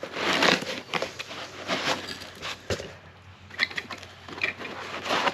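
Packing being pulled out of a shipping box: irregular bursts of cardboard rustling and scraping, with a sharp knock about two and a half seconds in.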